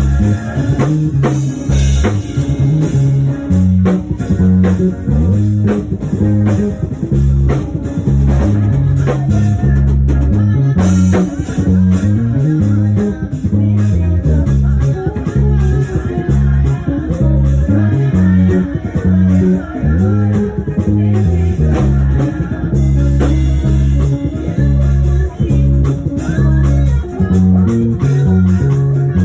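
Live band music carried by an electric bass guitar playing a busy, stepping bass line, with guitar and drum kit.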